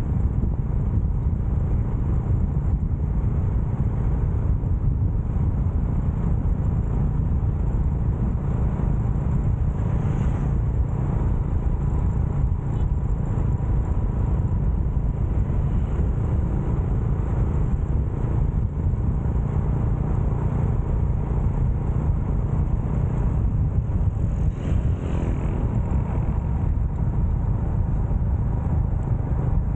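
Steady low rumble of wind and road noise heard while riding a motorcycle, with the bike's engine running underneath and a faint swell twice along the way.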